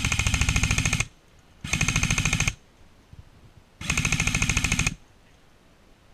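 Electric airsoft rifle firing three full-auto bursts, each about a second long, at a rapid even rate of roughly seventeen shots a second.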